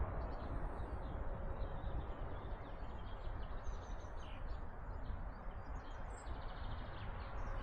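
Small birds chirping repeatedly over a steady outdoor background noise that carries a strong low rumble.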